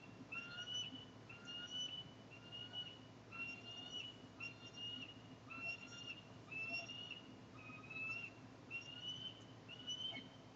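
Bald eagle calling: a steady series of about a dozen high, thin whistled notes, each rising slightly in pitch, roughly one a second.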